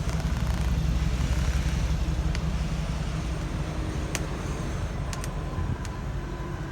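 Wind buffeting the camera microphone in a steady low rumble during a bicycle ride, with a few short sharp clicks.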